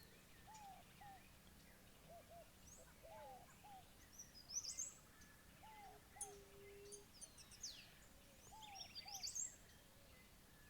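Several wild birds calling faintly. One repeats a pair of short, low notes over and over, while others add high quick chirps and a falling whistle now and then.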